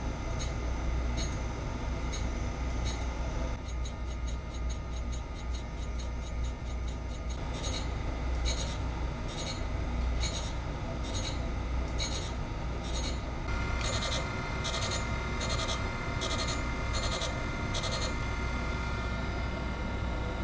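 Surface grinder's abrasive wheel grinding the ends of high-speed-steel cutter blanks held in an angle-vise fixture: a short scratchy burst each time the table carries the work under the wheel, over the steady hum of the wheel motor. The bursts repeat every half second or so, come faster for a few seconds, and stop a couple of seconds before the end.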